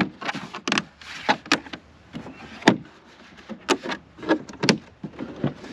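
A string of separate sharp clicks and knocks as small cables and adapters are handled and set back in their storage box, the loudest a little past the middle.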